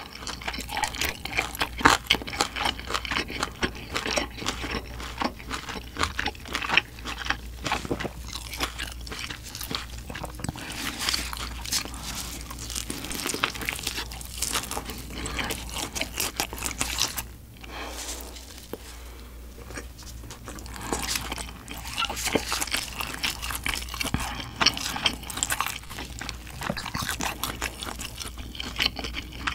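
Close-miked eating of roasted pork knuckle (schweinshaxe): biting, chewing and lip smacks, made up of many small sharp clicks. There is a quieter stretch a little past halfway.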